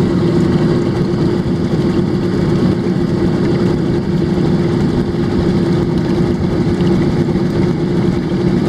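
Pontoon boat running at full speed: its motor gives a steady, unbroken drone, with water rushing along the pontoon hull.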